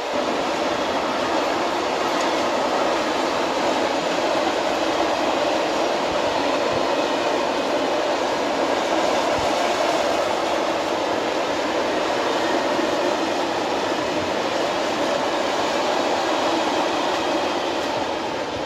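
Freight train of empty flat wagons rolling past, a steady rumble of steel wheels on the rails that eases slightly near the end as the last wagons go by.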